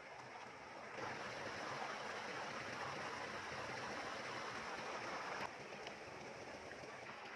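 Shallow water splashing and sloshing, stirred by wading and handling a large fish. The sound is louder from about a second in and cuts off suddenly a little past the middle.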